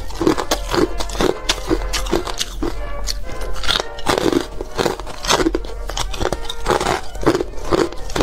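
Ice chunks being bitten and chewed close to the microphone: many sharp crunches, a few each second. Background music plays underneath.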